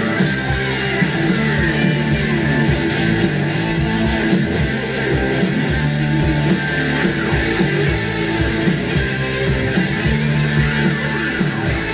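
Rock music with guitar, playing loudly without a break.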